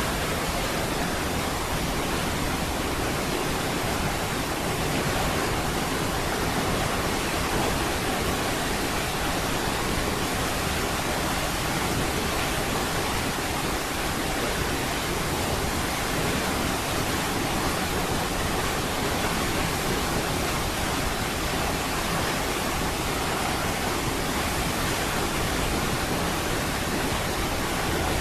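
Niagara Falls: the steady, even rush of a large waterfall's falling water, unchanging throughout.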